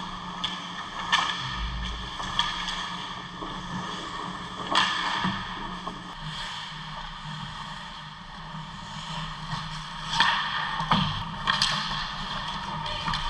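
Ice hockey play close to the net: skate blades scraping and cutting into the ice, with sharp stick and puck hits, over a steady low hum. The loudest scrapes and hits come about five seconds in and again around ten to eleven seconds in.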